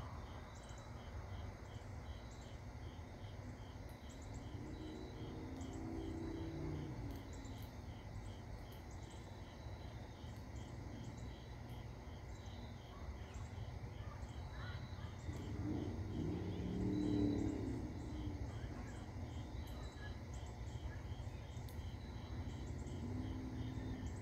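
Crickets chirping in a steady, evenly pulsing chorus, over a constant low rumble. A fainter low hum swells twice, loudest about two-thirds of the way through.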